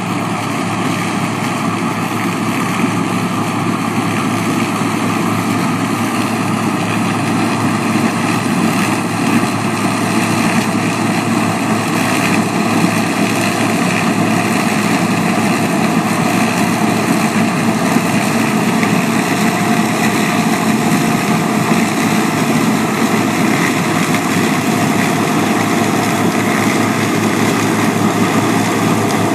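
Massey Ferguson 27 combine harvester running steadily, its engine holding an even note.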